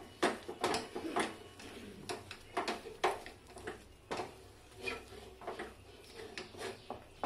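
Wooden spatula scraping and pressing thick, cooked rice flour dough around a nonstick pan, in irregular strokes about one or two a second. The dough is cooked to the stage where it comes away from the pan without sticking.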